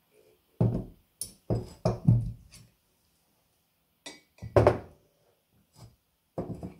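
Kitchen bowls and utensils being handled and set down on a counter: a handful of dull thunks with light clinks.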